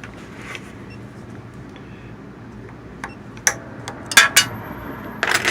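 Sharp metallic clicks and clinks, a few scattered through the second half and loudest near the end, as the decoder is taken off a Miracle A7 key machine so that its cutter can be fitted.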